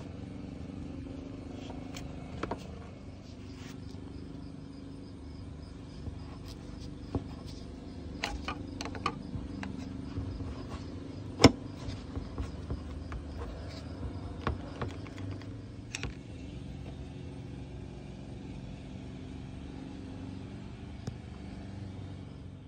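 Toyota Sequoia's engine idling steadily, with scattered light clicks and one sharp knock about eleven seconds in.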